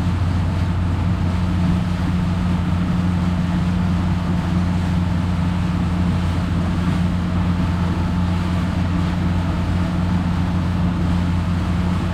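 Boat engine running at a steady speed, an even low hum with wind and water noise over it.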